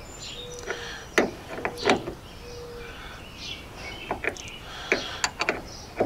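Scattered sharp metal clicks and clinks from a ratchet wrench and socket being worked on the bolt through a side-post battery's cable terminal, coming irregularly and more often in the second half.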